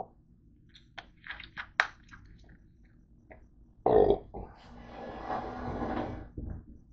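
A few sharp clicks and crackles from a plastic soda bottle being handled, then about four seconds in a loud burp, followed by a long breathy exhale.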